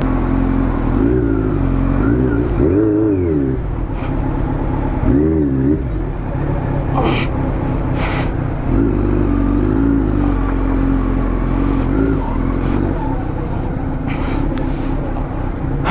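Motorcycle engine running, its revs wavering up and down in several quick surges, with two short knocks about seven and eight seconds in.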